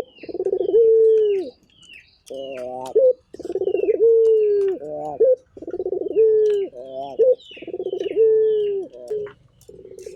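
Barbary dove (puter) cooing over and over, about one phrase every two seconds. Each phrase is a long, low coo that starts with a rolling trill and bends down at the end, followed by a short, higher warbling note. Faint high chirps of small birds sound above it.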